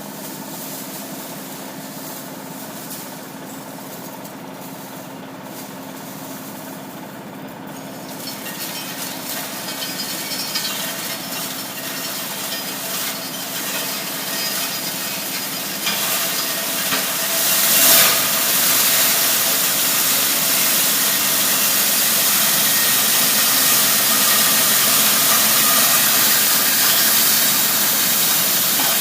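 Steel scrap crusher running: a steady machine hum, joined from about eight seconds in by a rising grinding rasp as steel turnings are crushed. A brief loud burst comes about eighteen seconds in, followed by a louder steady grind.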